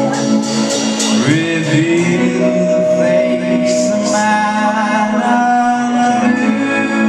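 Live rock band playing: a male singer's vocals over electric guitar and a drum kit, with sustained and sliding notes.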